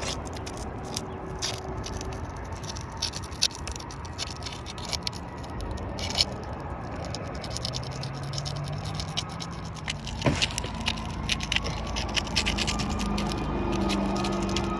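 Scraping and scratching on asphalt roof shingles as their sealed tabs are worked at to break them loose. The tabs are firmly bonded to the roof and will not lift without damage.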